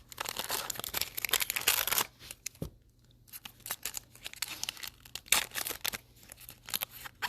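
Foil trading-card pack wrapper crinkling and tearing open, dense for about two seconds, then sparser crackles as the pack and cards are handled.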